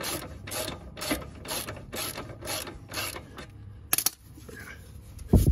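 Socket ratchet clicking in repeated strokes, about two a second, on the lower shock mounting bolt of a Miata's front suspension, stopping after about three and a half seconds. A sharp metallic click follows, then a heavy thump near the end.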